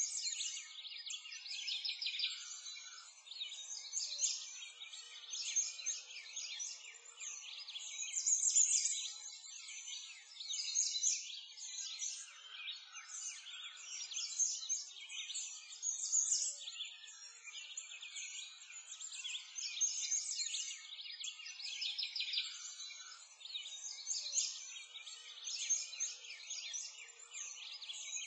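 A dense chorus of small birds chirping and singing, with many short, high calls overlapping and no low sounds underneath.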